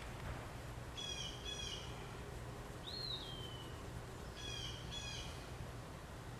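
Birds calling: two pairs of short, harsh calls, one pair about a second in and another near the end, with a single rising-then-falling call about three seconds in, over a low steady rumble.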